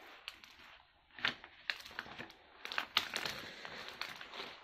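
Crinkling and crackling of the protective paper sheet on a diamond painting canvas as it is handled and peeled back from the sticky canvas, with several sharp crackles around one and three seconds in.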